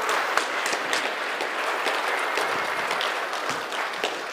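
Audience applauding, dense clapping that starts to die away near the end.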